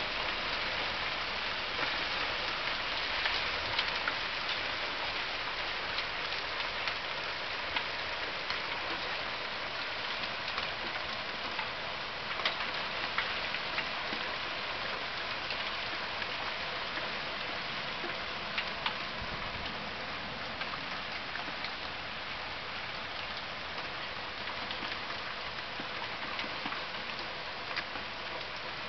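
Hail falling on a paved path, gravel and garden plants: a steady hiss of impacts with sharp ticks scattered through it, easing a little towards the end.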